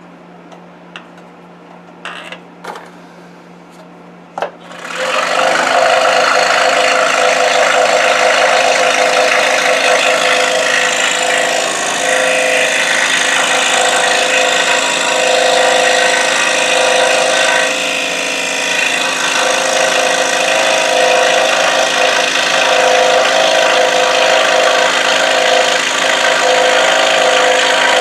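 A few light clicks and knocks, then about five seconds in a scroll saw starts up and runs steadily, its blade cutting through wood.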